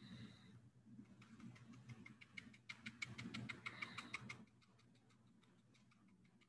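Paintbrush dabbed up and down, stippling blue paint along a torn-paper edge onto cardboard: faint quick taps, several a second. The taps are thickest from about three to four and a half seconds in, then trail off to scattered light taps.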